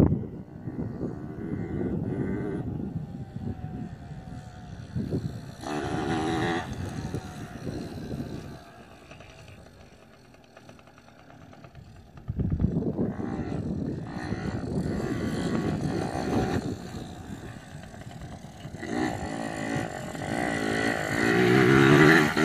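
Yamaha PW80 dirt bike's small two-stroke engine running and revving, its pitch wavering. It drops low for a few seconds around the middle, picks up again about halfway through, and is loudest near the end as the bike passes close.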